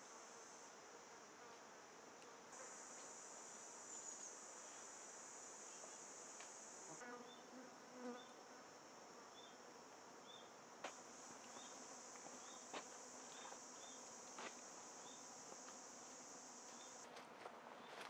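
Faint woodland insect sound: a steady high-pitched buzz that drops out and returns a few times. Short high chirps repeat through the second half, and a few light sharp knocks come near the middle.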